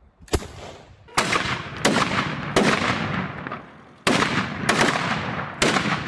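Japanese matchlock muskets firing black-powder shots one after another: a short sharp crack near the start, then six shots at uneven intervals, each trailing off in a long echo.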